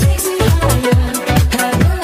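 Electronic dance music with a steady kick drum, about two beats a second, under a synth melody.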